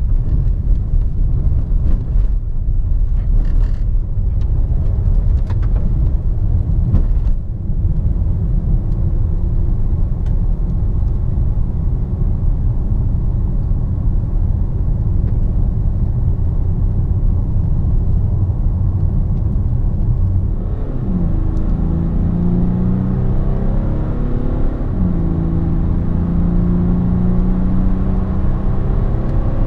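Cabin sound of a DS7 Crossback's 2.0 BlueHDi 180 four-cylinder turbodiesel on the move: at first mostly a low road and tyre rumble, with a few knocks from the rough road surface in the first several seconds. About two-thirds of the way in, the engine note comes up under acceleration, its pitch rising, dropping once at an upshift and rising again.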